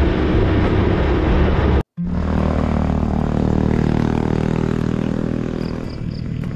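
Onboard noise of a vehicle driving on a paved road, a steady low rumble that cuts off abruptly about two seconds in. It is followed by a steady droning hum with several even tones that slowly fades.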